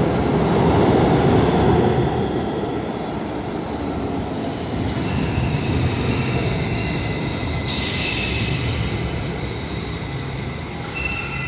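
An R68-series New York subway train moving along the track on a curve, with a steady rumble of steel wheels on rail. From about four seconds in, high wheel squeals set in, and near the end they hold as several steady shrill tones.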